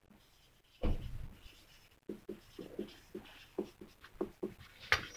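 Dry-erase marker squeaking across a whiteboard in many short strokes as words are written, after a single thump about a second in.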